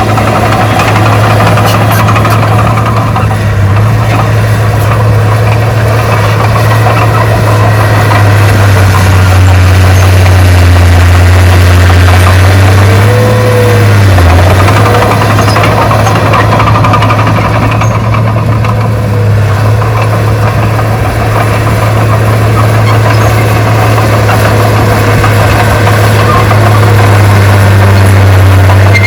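Loud, steady diesel engine of heavy earthmoving equipment, a bulldozer or dump truck, running with a deep hum. The pitch dips briefly about halfway through.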